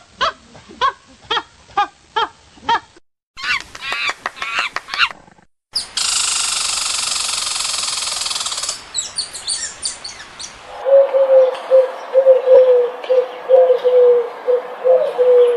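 A string of chirping animal calls: first evenly spaced calls about two a second, then a quick twittering run, then a harsh hissing call lasting about three seconds, and in the last part a long run of short notes held at one pitch.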